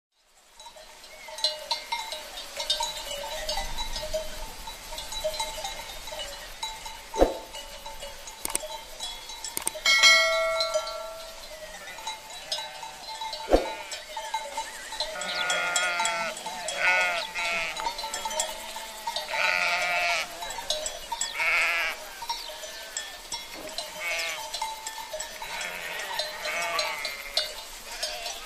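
A flock of sheep bleating, the bleats coming thick and wavering in the second half. Two sharp knocks and a brief ringing tone come about a third of the way in.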